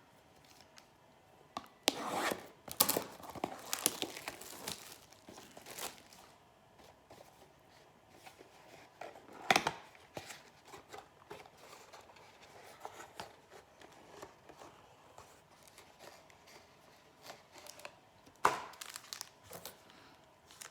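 Plastic card-pack and box wrapping being torn open and crinkled by hand, in several separate spells of ripping with short quiet gaps between.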